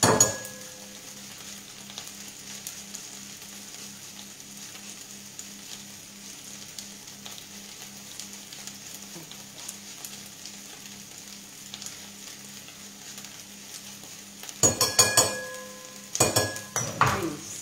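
Artichokes sizzling steadily in a frying pan. Sharp clinks and knocks of kitchen utensils come at the start and in two clusters near the end.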